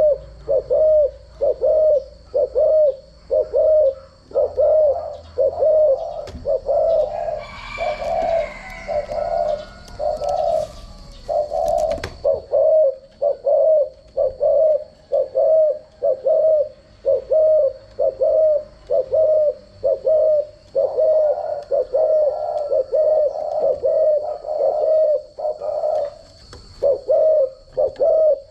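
Spotted dove cooing: short, low coos repeated about twice a second without a break.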